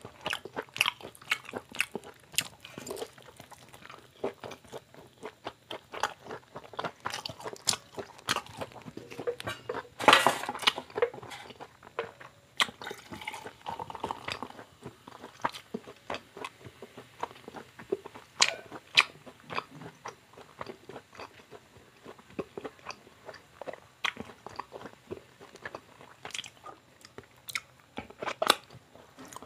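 Close-up chewing and biting of a fried chicken leg, many small crunchy clicks. About ten seconds in comes a short loud hiss, and a few seconds later beer is poured from a can into a plastic mug.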